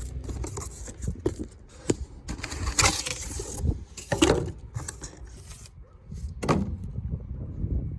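Cardboard shipping box being opened and its packing handled: irregular scraping, rustling and sharp knocks, loudest about three and four seconds in and again near the end, over a low rumble.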